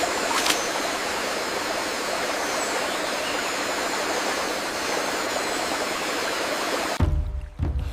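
Steady rush of running water, with a couple of faint clicks near the start; it cuts off suddenly about seven seconds in.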